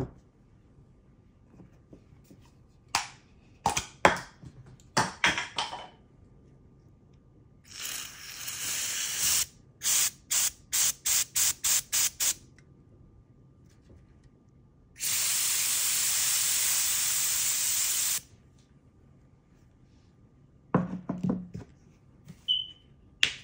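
Spray bottle wetting a coin and baking-soda powder on a rubber mat: a hiss of a couple of seconds, then a quick run of about eight short squirts, then one steady hiss of about three seconds. Handling clicks and taps come before and after the spraying.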